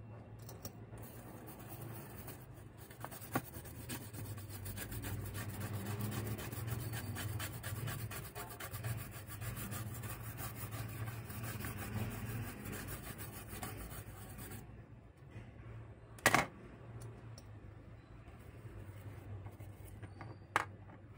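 A small brush scrubbing a graphics card's circuit board in rapid back-and-forth strokes to clean off corrosion from water damage. The scrubbing turns much quieter about two-thirds of the way through. Two sharp knocks follow, the louder one shortly after the scrubbing eases.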